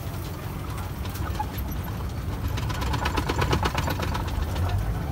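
Safari ride truck's engine running with a steady low rumble, heard from inside the vehicle. From about a second and a half in until near the end, a dense run of rapid clicking rattles lies over it.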